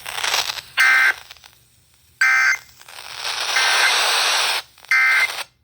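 Emergency Alert System end-of-message data bursts: three short, loud, buzzy bursts of two-tone digital data with radio hiss between them, cutting off after the third burst.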